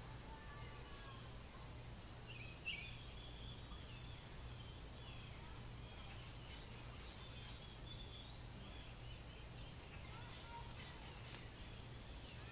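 Faint outdoor background: a steady high insect drone with a few scattered short bird chirps over a low rumble.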